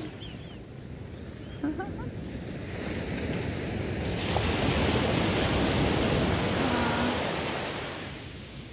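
Small ocean surf on a sandy beach: a wave's wash builds about three seconds in, stays loudest for a few seconds, then fades near the end.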